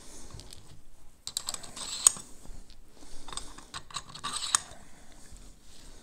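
Light clicks and scrapes of small metal parts being handled and fitted by hand on a Pharos hand coffee grinder's frame, with one sharper click about two seconds in.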